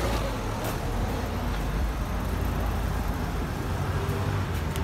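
City street traffic noise: a steady low rumble of passing road vehicles, with a couple of faint ticks.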